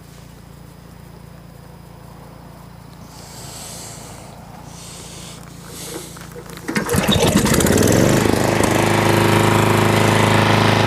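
Antique gasoline generator's small engine starting on a single pull of the recoil starter rope about two-thirds of the way in, after a faint low hum, then running steadily.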